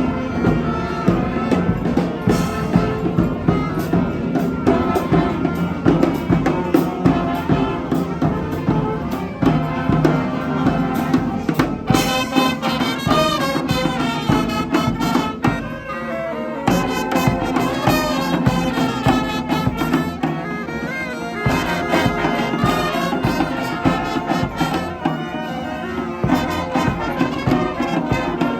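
Street brass band playing in a parade: trumpets and trombones over drums.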